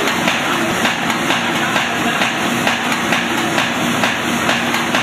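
Paper bag making machine running, its mechanism clattering in a quick, even rhythm over a steady hum.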